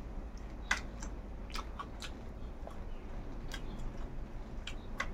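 Close-miked mouth sounds of a person eating by hand: irregular wet clicks and smacks of chewing, about two or three a second.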